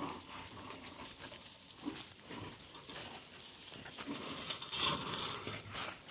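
Rustling and crunching in dry leaf litter, with scattered small clicks and knocks.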